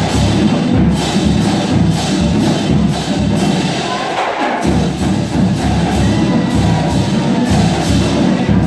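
Rhythmic percussion with a steady beat: sharp, clicking strokes over low, drum-like pulses, the low part dropping out briefly a little past the middle.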